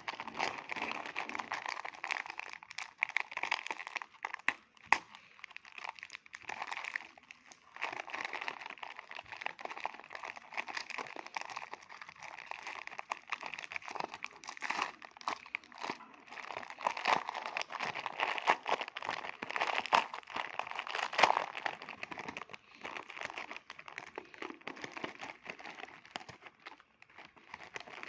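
Plastic biscuit packet crinkling as it is handled and opened, in dense runs of crackles broken by short pauses.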